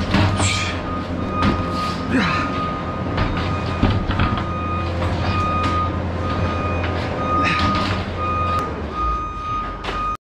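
A vehicle's reversing alarm beeping steadily, about once a second, over a low steady engine rumble, with scattered knocks and clatter of work close by.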